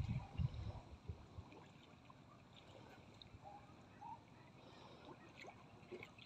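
Muddy water sloshing as a person wades and moves a woven basket through it: a few deep splashes in the first second, then only faint small sloshes and ticks.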